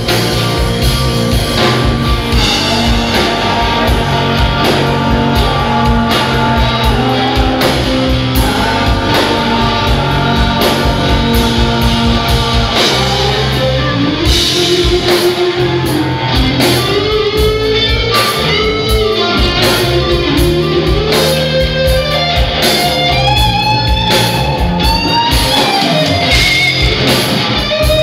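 Live rock band playing loud: electric guitar over bass guitar and drums, with no singing. From about halfway through, the guitar takes a lead with bent, wavering high notes.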